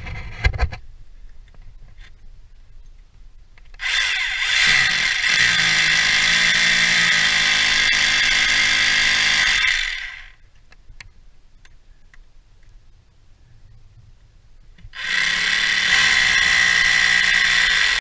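Hilti cordless hammer drill boring into brickwork: one run of about six seconds starting about four seconds in, and a shorter one near the end, each with a steady high whine over the motor. A couple of sharp clicks right at the start.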